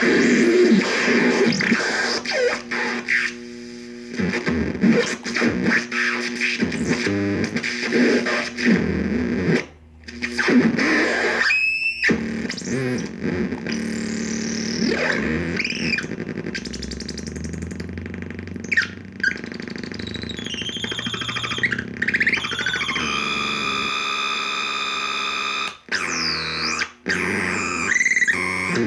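Joystick-controlled noise synthesizer making harsh, shifting noisy tones with swooping pitch glides, then holding a steady chord-like drone for a few seconds near the end, cut by a couple of brief dropouts.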